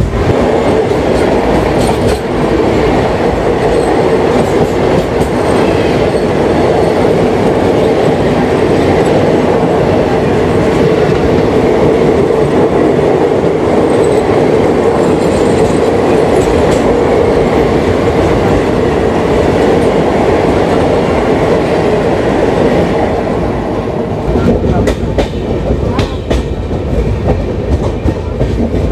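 A parcel train passes close alongside the moving express on the next track, a loud steady rush of wheels on rail. Near the end the rush eases and the express's own wheels are heard clicking over rail joints.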